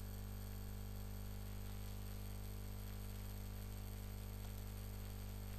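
Steady low electrical hum, mains hum with its overtones, under a constant layer of hiss; nothing else happens.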